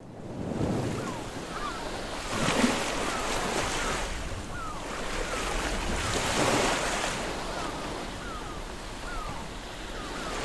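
Ocean waves washing in slow surges that swell and fade every couple of seconds, with many short, falling gull cries over them.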